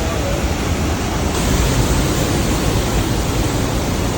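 The Rhine Falls' water pouring, a loud, steady rush of noise.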